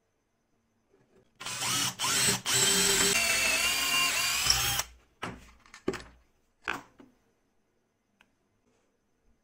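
Bosch power drill boring a hole into wood, its motor running for about three and a half seconds with two brief stops near the start, the whine wavering in pitch under load. A few short, quieter bursts of sound follow.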